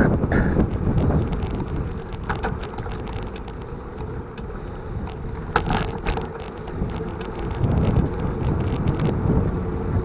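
Wind buffeting the microphone on a moving bicycle, a low rumbling noise with scattered light clicks and rattles. A few short, sharp sounds stand out near the start and about halfway through.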